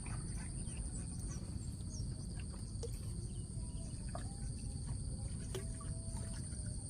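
Insects trilling steadily at two high pitches, over a low outdoor rumble with a few faint ticks.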